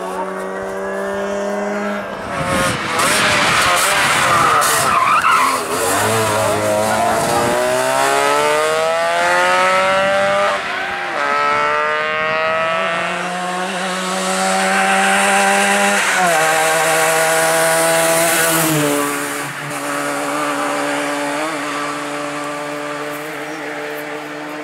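Trabant rally cars' two-stroke twin-cylinder engines revving hard as they pass at speed. The pitch climbs through each gear and drops at each shift. A few seconds in there is a burst of loud rushing noise, like tyres skidding.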